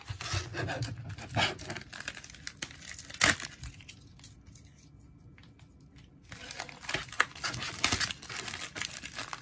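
Plastic bubble mailer and paper insert crinkling and rustling as they are handled and opened, with a sharp snap about three seconds in and a quieter stretch in the middle before the crinkling picks up again.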